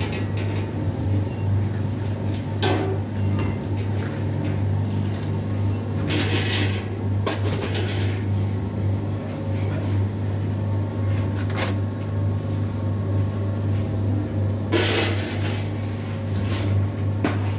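Electric blower fan of a rice-husk furnace running with a steady low hum, with a few brief noises as fuel is fed into the firebox.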